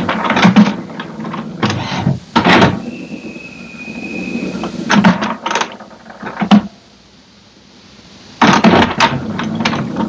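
HP Smart Tank 580 inkjet printer's mechanism working through a level 3 printhead cleaning: irregular bursts of whirring and clattering with short pauses, and a steady high whine for a couple of seconds about three seconds in.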